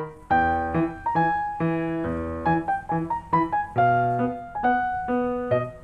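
Background music: a light piano tune of separate struck notes at an easy, even pace.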